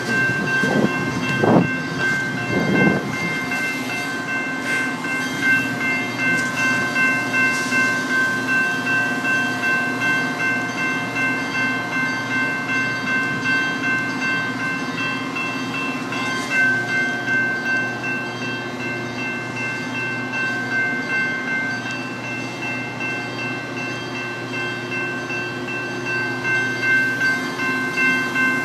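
Metra bilevel commuter train coming in along the platform, its wheels knocking over rail joints a few times in the first seconds, then standing with its engine running. Over this, a railroad crossing bell rings steadily in an even pulse.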